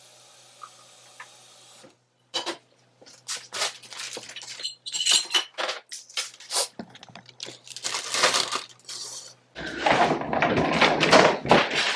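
Food packages knocking and plastic bags crinkling as frozen items are shuffled and stacked in a freezer. The irregular clatter starts about two seconds in and turns dense and louder near the end.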